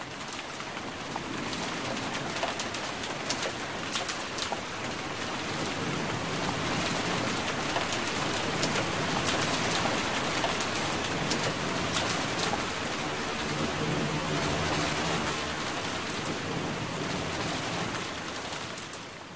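A NOHAB diesel locomotive approaching over a steady hiss, with scattered clicks in the first few seconds. From about two-thirds of the way through, the low drone of its diesel engine comes up clearly, then the sound fades near the end.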